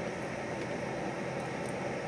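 Metal lathe running at a steady speed with its chuck spinning, giving an even mechanical hum and whir with no change.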